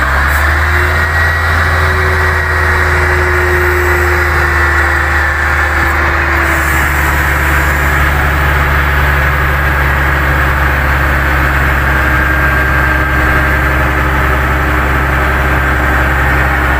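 Komatsu GD535-5 motor grader's diesel engine running steadily at idle, a constant low hum with a thin high whine over it that rises slightly about a second in and then eases gently down.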